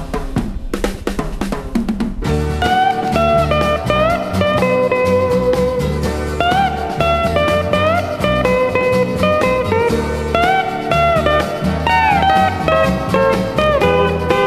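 Dance-orchestra pop music from a 1972 LP: a drum fill for about two seconds, then the full band comes in with a steady drum-kit beat and a melody line that slides between notes.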